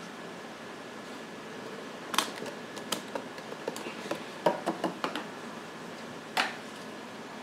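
A string of sharp clicks and knocks from plastic food tubs and lids being handled at a counter beside a dial scale, the loudest about two seconds in, halfway through and near the end, over a steady room hiss.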